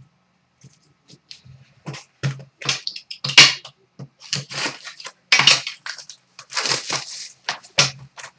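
Plastic shrink-wrap being cut and torn off a sealed hockey card hobby box, crinkling and crackling in short bursts, with a longer tear of the wrap about two-thirds of the way through.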